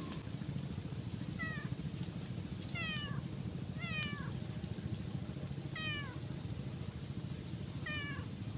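A cat meowing five times, short calls that slide down in pitch, one every one to two seconds.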